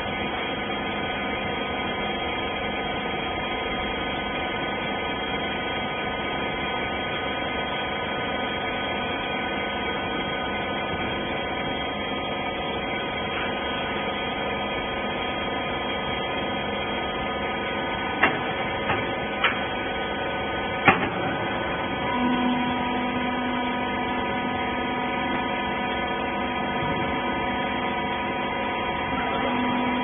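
Hydraulic rag baler running with a steady mechanical hum. A few sharp clicks come about two-thirds of the way through, and a lower steady tone joins in just after them.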